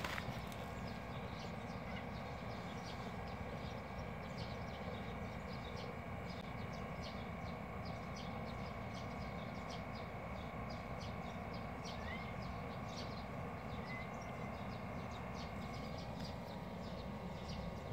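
Outdoor ambience: a steady low rumble with many short, high bird chirps scattered throughout.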